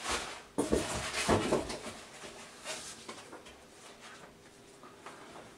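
Packaging being handled: crinkling and rustling, with a few knocks in the first two seconds, then fainter rustling.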